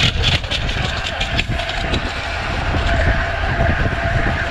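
Wind buffeting a bike-mounted camera's microphone while riding a road bicycle at about 28 mph in a pack, over the hum of tyres on the road. A run of short clicks sounds in the first second and a half.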